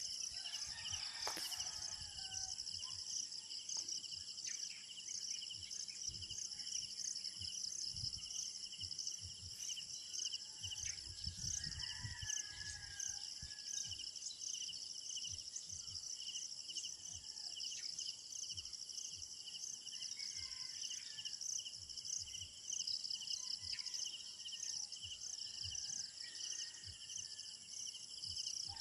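A steady, high-pitched chorus of insects such as crickets, pulsing fast, with scattered short bird chirps over it and some low rumble of wind on the microphone.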